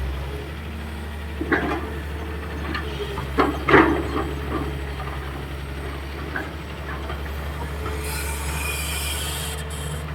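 Hitachi EX220-3 long-boom excavator's diesel engine running steadily while it digs, with a few sharp knocks from the working arm and bucket, the loudest nearly four seconds in, and a high hiss for about two seconds near the end.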